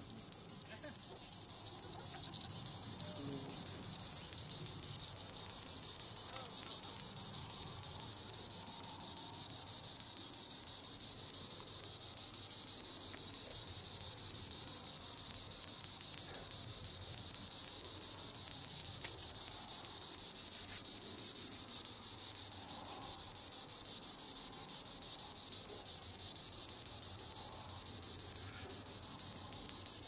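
Green annual cicadas (Tibicen linnei) singing in the treetops: a continuous high-pitched buzzing drone that swells and eases, loudest a few seconds in and again around the middle, dipping briefly about three-quarters of the way through.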